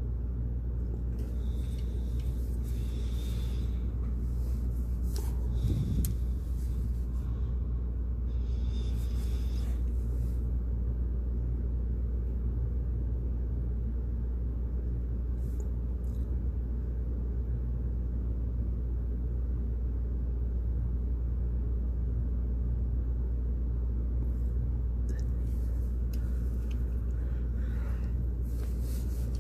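Steady low hum, with a few faint, brief scratchy sounds over it.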